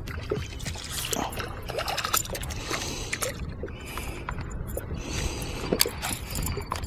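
Wind and water noise on an open fishing boat, with scattered clicks and knocks from tackle and boat handling.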